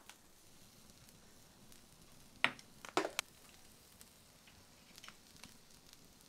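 Cooking at a wood-fired stove: a few sharp clicks and knocks near the middle over a faint, steady background hiss, with lighter ticks later.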